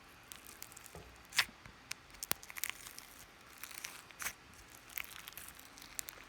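Slime and its plastic packaging being handled close to the microphone: scattered soft crinkles and small clicks, with a few sharper snaps spread through.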